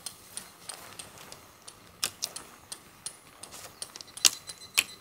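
Irregular sharp clicks and taps of tent poles and their plastic clips being handled while a dome tent is pitched, the two loudest a little past four seconds in.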